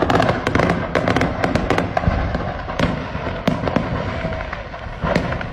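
Fireworks going off in a rapid, irregular string of sharp bangs and crackles. They are densest in the first two seconds, thin out, then pick up again near the end.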